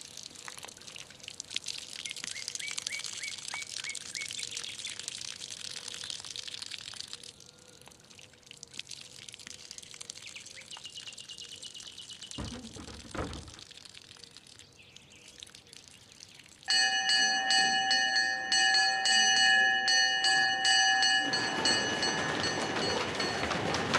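Faint birdsong outdoors, then, about two-thirds of the way in, a loud bell starts abruptly and rings on one steady chord for about five seconds, like a school bell signalling the end of a period. A noisy rush follows it.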